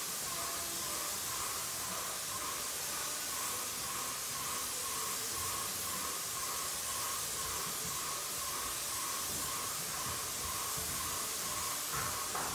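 Paint spray gun hissing steadily as it sprays paint onto a wooden wall, with a faint regular pulsing beneath the hiss.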